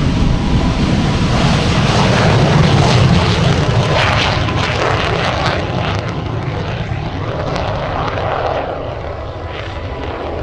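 MiG-17 Fresco's Klimov VK-1 jet engine at full power on takeoff, a loud continuous jet noise that is loudest a few seconds in and then slowly fades as the aircraft moves away.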